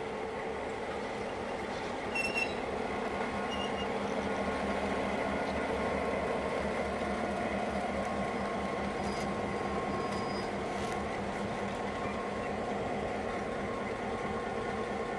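HO scale model train, a switcher locomotive and bulkhead flatcars, rolling slowly along the track: a steady running hum and rumble, with a few light clicks and squeaks from the wheels about two seconds in and again a little past the middle.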